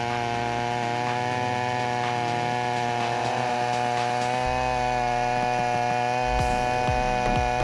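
Large gasoline chainsaw running at steady high revs, its engine note holding one pitch throughout. A few short knocks and a low rumble come in near the end.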